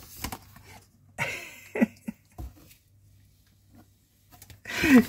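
Domestic cat meowing briefly, about a second in and again near the end, with a few light knocks from a cardboard box.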